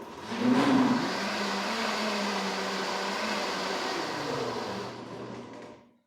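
Arno Clic-Lav LN72 blender motor running at speed, then slowing with a falling pitch from about four seconds in and stopping just before the end.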